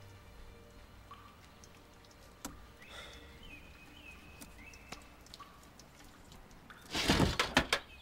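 Quiet stretch with a few faint high chirps, then, about seven seconds in, a burst of loud knocking and scraping as the heavy toolbox on top of a plastic milk crate is shoved.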